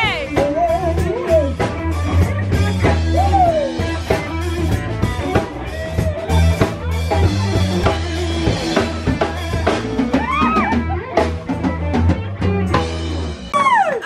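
A live band playing: drum kit, bass and guitar, with a woman singing. The music cuts off just before the end.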